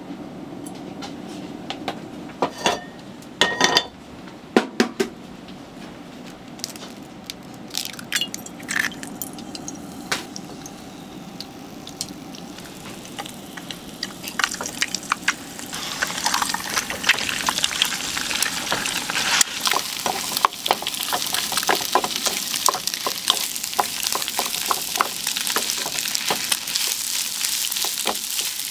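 Metal utensils clinking a few times, then, about halfway through, fried rice starting to sizzle in a hot pan, with a steady hiss and a metal spatula scraping and tapping as it is stirred.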